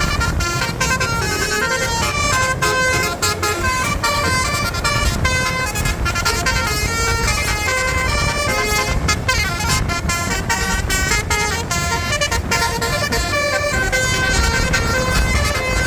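Bus basuri horn, a multi-trumpet musical air horn, playing a tune of clear notes that change several times a second, over a steady low rumble.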